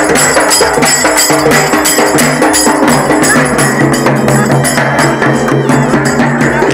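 Music with a fast, steady percussion beat of drums and small brass hand cymbals.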